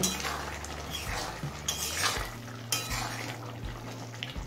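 Flat spatula stirring a thick curry in a metal kadai, with several scrapes of the spatula against the pan, over a steady low hum.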